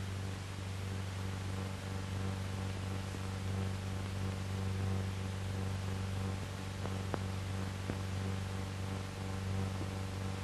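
Steady low hum and hiss of an old film soundtrack with no narration, with a couple of faint clicks about seven and eight seconds in.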